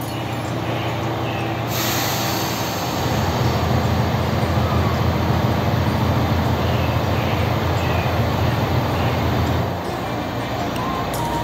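JR Shikoku 2000 series diesel railcar running its engines as it pulls slowly along the platform, a steady low drone that grows louder about three seconds in and eases off shortly before the end as the train comes to a stop.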